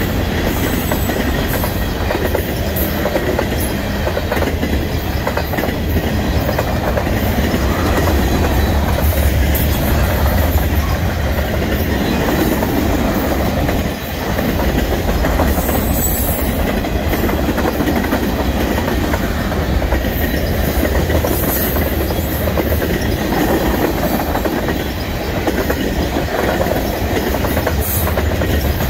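Freight cars of a fast-moving train passing close by: covered hoppers, boxcars and tank cars with steel wheels running over the rails. The rumble is steady and loud, with a few brief high-pitched flares.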